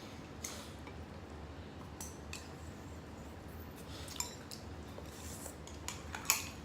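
Eating utensils clicking and scraping against dishes during a meal, in scattered light taps, with one sharper clink near the end.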